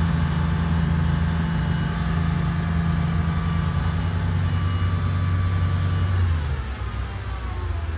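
Volvo Penta KAD300 six-cylinder diesel sterndrive engine running steadily under a full-throttle pull, held at about 3,000 RPM. About six seconds in it is throttled back and the engine note falls. The port engine reaches the same 3,000 RPM as the starboard one, a sign that neither engine is weak.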